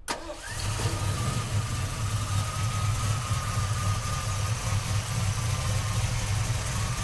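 Ford 302 cubic-inch small-block V8, with a Holley four-barrel carburettor, headers and Flowmaster dual exhaust, idling steadily with the hood open.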